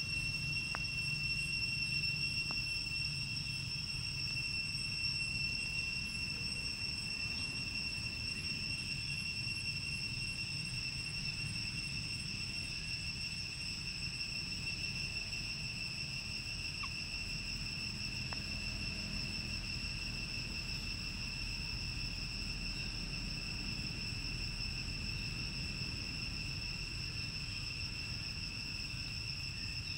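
Insects droning in the trees: one steady, unbroken high-pitched tone over a low rumble.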